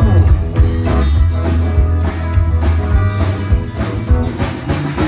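Live band playing a rock-and-roll cover song with guitar, bass and drums at a sound check before the show.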